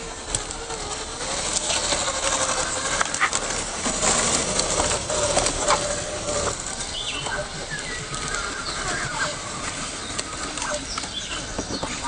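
A small RC crawler's electric motor and drivetrain whine, wavering in pitch with the throttle, while its tyres crackle and snap over dry leaves and twigs. The whine stops about halfway through, and birds chirp in the second half.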